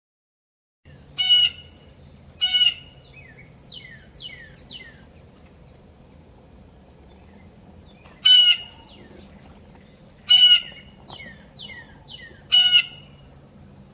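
Blue jay calling: five loud calls spread through the stretch, with runs of shorter falling notes between them.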